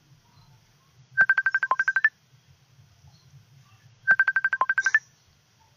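Mobile phone ringtone: two bursts of about ten quick electronic beeps, each ending on a lower and then a higher note, about a second in and again about four seconds in.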